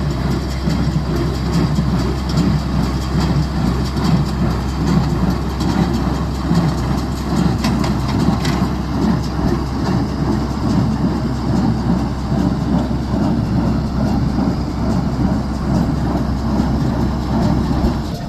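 Haymow bale conveyor running along its track, a loud, steady mechanical rattle over a low hum.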